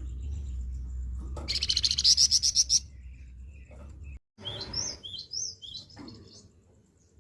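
A songbird sings a rough, rapid rattling burst of chirps, the loudest sound here. A string of short up-and-down whistled notes follows. A low rumble runs underneath the first half.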